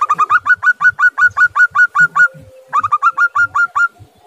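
Zebra dove (perkutut) calling: two quick runs of short, clear repeated notes, about seven a second. The first run lasts about two seconds; the second, about a second long, follows a brief pause.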